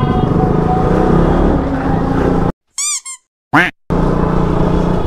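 Street traffic noise, cut about two and a half seconds in by an edited-in cartoon sound effect: dead silence around a quick run of wobbling, squeaky chirps followed by a fast rising whistle, after which the traffic noise returns.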